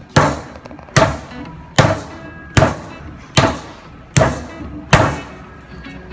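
Iron pounding rod beating a slab of raw pork on a wooden chopping block: seven even thuds about 0.8 s apart, stopping about five seconds in. This is the hand-pounding that turns hind-leg pork into meat paste for gongwan (pork balls).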